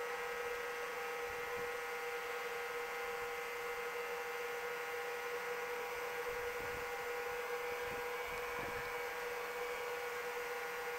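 15-amp battery charger humming steadily while charging a car battery: an even electrical hum with a steady mid-pitched tone.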